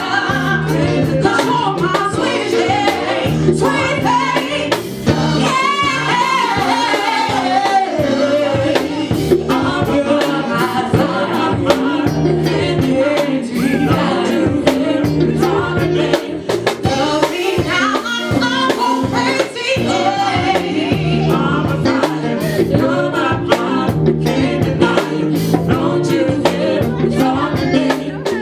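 Live band playing a song with a lead singer: a sung melody over sustained bass notes, keyboard, guitar and drums keeping a steady beat.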